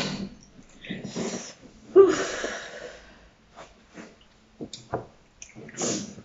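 Breathy snorts and puffs of breath, the loudest about two seconds in, followed by a few light clicks.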